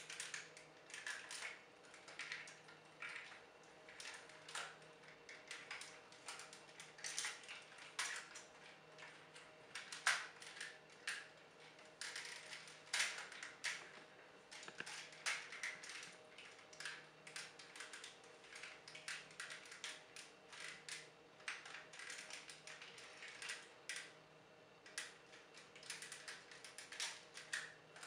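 Plastic clicks and clacks of a Transformers Nemesis Breaker action figure being handled and transformed, its joints and panels snapping and ratcheting into place. The clicks come irregularly throughout, a few sharper snaps standing out.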